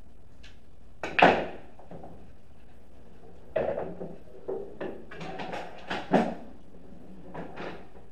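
A pool shot about a second in: a sharp click of cue and balls, the loudest sound, sending the red ball into a pocket. It is followed by a scatter of lighter knocks and clatter.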